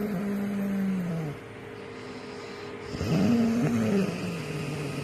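A man snoring loudly: one long, pitched snore trails off about a second and a half in, and a second begins about three seconds in, rising and then falling in pitch.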